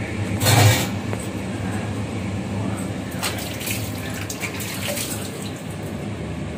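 Covered steel pan cooking on a gas stove burner: a steady hiss and low rumble from the flame and the simmering food. A brief, louder rush of noise comes about half a second in, and a few light clicks follow around three to four seconds.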